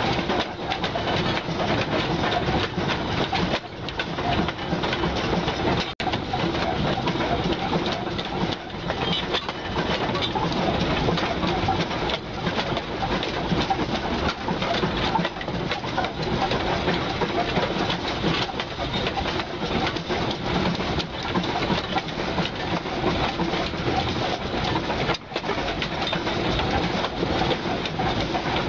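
Narrow-gauge railway train running along the track: a steady rumble and clatter of wheels on the rails and couplings. The sound cuts out for an instant about six seconds in and again near the end.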